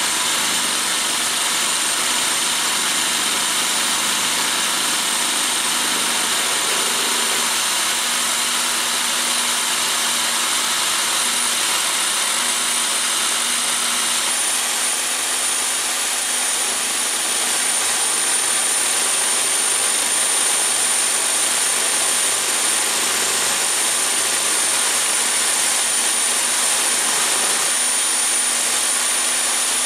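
A 220 V electric power drill running continuously, spinning a flycutter in a lathe milling fixture as it cuts across an aluminium bar: a steady high-pitched motor whine over a constant rushing cutting noise, the whine rising slightly about halfway through.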